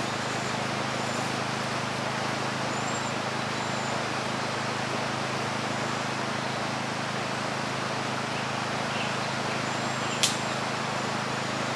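Steady outdoor hiss with a low, even machine-like hum underneath, a few faint high chirps, and one sharp snap about ten seconds in.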